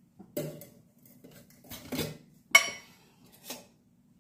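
Steel kitchen utensils clinking and knocking together, four or five knocks, the loudest about two and a half seconds in and ringing briefly.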